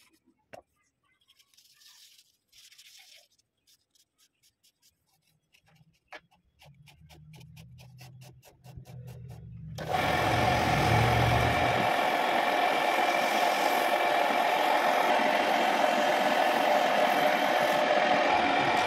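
Homemade wood lathe: soft wooden rubbing and a run of light, even ticks, then a low hum builds, and about ten seconds in the lathe's motor is running loud and steady with a constant whine.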